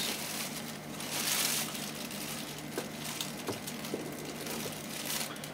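Plastic bag of rye flour rustling and crinkling as a measuring cup is scooped through the flour, with a few faint light clicks. A low steady hum runs underneath.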